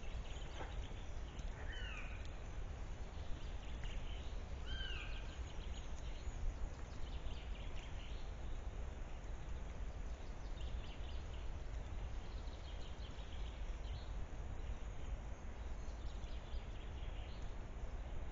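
Steady low rumble of outdoor noise with faint rustles and steps from a herd of red deer hinds moving about on the forest floor. A short call falling in pitch sounds twice, about two and five seconds in.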